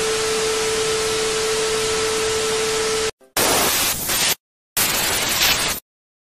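Television static hiss with a steady test tone running under it, cutting off about three seconds in. Then come two short bursts of static, each about a second long, with a brief gap between them.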